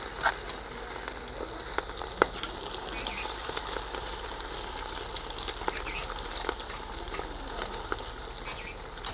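Battered fish pieces deep-frying in hot oil in an aluminium wok: a steady sizzle, with a few short sharp clicks, the loudest about two seconds in.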